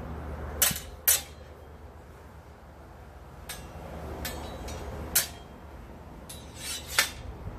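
Steel longsword blades clashing in sparring: sharp metallic clanks, two in quick succession near the start and several more spread through, with a longer sliding contact of blade on blade just before a last loud clank near the end.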